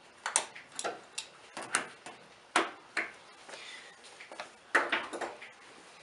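Irregular sharp clicks and knocks of hand tools and metal or plastic parts being handled while a radiator hose is refitted, about a dozen with short gaps between them.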